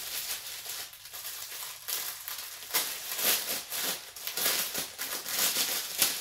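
Clear plastic packaging bags crinkling and rustling as they are handled and opened, in quick irregular crackles.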